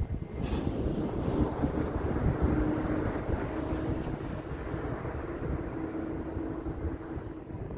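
Strong wind buffeting the microphone: a steady rushing rumble, with a faint steady hum underneath from about two seconds in.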